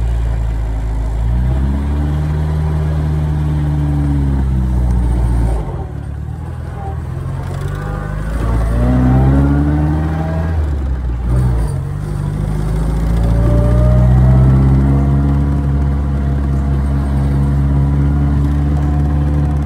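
1953 MG TD's 1250 cc inline-four engine running through a stainless exhaust while driving. The revs climb and fall back three times, with short dips in between, then hold steady near the end.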